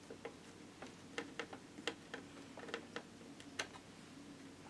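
Light, irregular clicks from a small Phillips screwdriver working the screws that hold a replacement laptop screen in its lid. The clicks stop about three and a half seconds in, over a faint steady hum.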